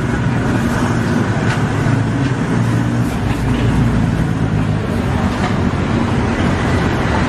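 Steady street traffic rumble with a vehicle engine running, and a few light clicks over it.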